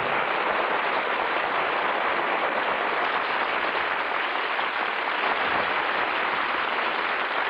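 Studio audience applauding steadily, a dense even patter of many hands clapping, heard on a narrow-band old radio broadcast recording.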